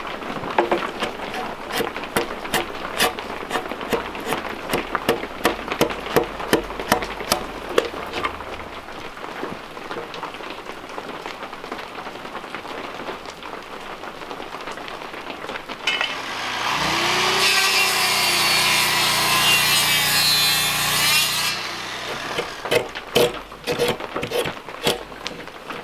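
A Norwood portable band sawmill cutting timber for about five seconds, its engine rising in pitch as the cut begins and the blade running through the wood with a wavering whine. It is set between stretches of irregular knocks and taps.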